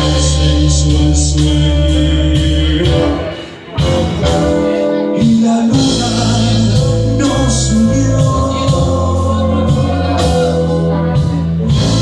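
Live rock band playing, with electric guitars, bass guitar, drum kit and singing. The band stops short about three and a half seconds in, then comes back in.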